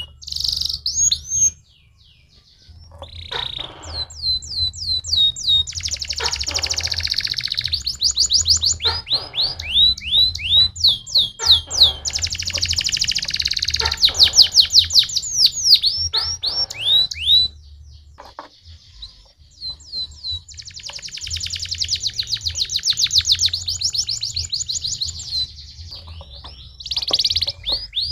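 Domestic canary singing: a long song of rapid trills, each made of quickly repeated rising and falling notes, with short breaks near the start and about two-thirds through. A faint low hum lies underneath.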